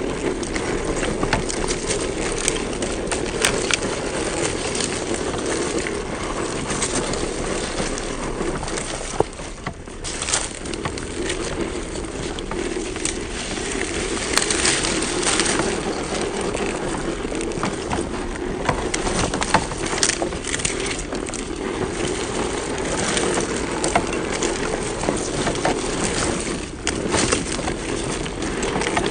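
Small RC crawler truck driving slowly, its electric motor and gearbox giving a steady whine while the tyres crunch and crackle over dry leaves and hard, cracked dirt.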